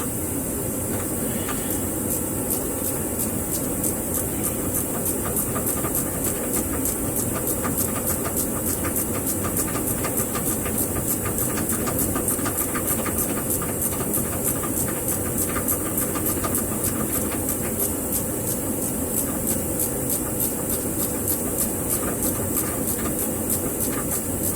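Ratcheting wrench clicking fast and evenly as a Watts link nut is worked loose, over a steady background hiss.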